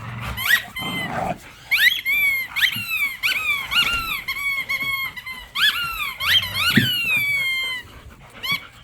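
Dogs biting a rubber squeaky toy, making a long run of high squeaks that each rise quickly then fall in pitch, in clusters with short gaps. A dog growls low underneath.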